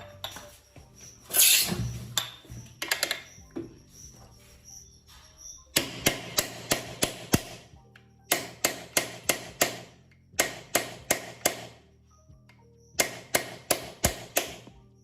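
Hammer tapping the rear-axle chain adjuster of a Bajaj Pulsar 200, knocking it along to tension the drive chain: a louder knock early on, then four bursts of quick metallic taps, about four a second. Background music plays underneath.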